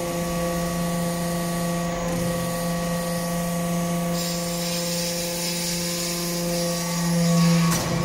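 Hydraulic unit of a copper-chip briquetting press running with a steady humming whine. About four seconds in a hiss joins it. Near the end the sound swells, then cuts off abruptly with a click.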